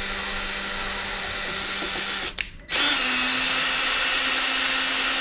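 A power drill running in two bursts: a steady whir, a short stop a little past two seconds in, then a second run at a slightly higher pitch.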